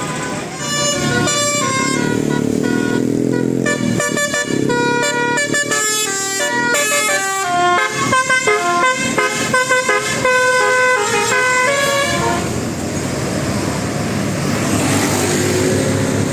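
Bus Basuri telolet horn, a multi-tone air horn, playing a quick melody of many short notes that steps up and down in pitch, then stopping about twelve seconds in, leaving road noise.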